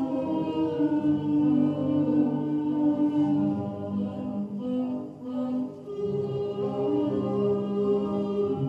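Choral music: several voices singing slow, long held notes that move to new pitches every second or two, with a brief lull about five seconds in.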